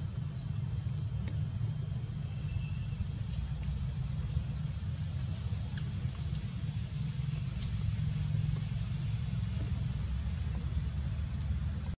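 Steady high-pitched insect drone, one unbroken tone, over a low steady rumble, with a few faint clicks.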